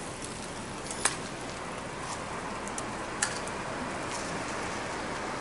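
Sharp snapping cracks, two of them about two seconds apart, over a steady hiss.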